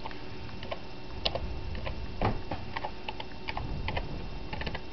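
Typing on a computer keyboard: irregular key clicks, with a few louder strokes among them.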